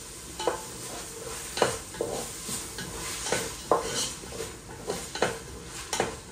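Food sizzling in a hot pan while a spoon stirs it, scraping and knocking against the pan about ten times at an uneven pace.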